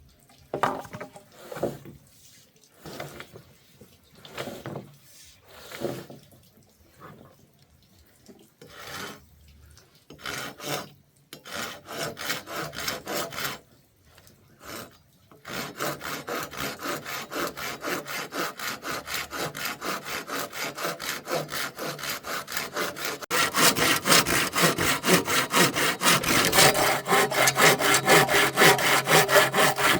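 Hand saw cutting through wood. It starts with a few separate strokes, then from about halfway in the strokes come fast and even, about four a second, and they get louder for the last quarter.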